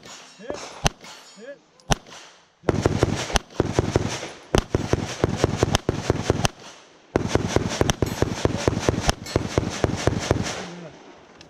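Handgun shots fired at steel targets: a few single sharp cracks in the first two seconds, then two long stretches of loud rushing noise full of rapid cracks.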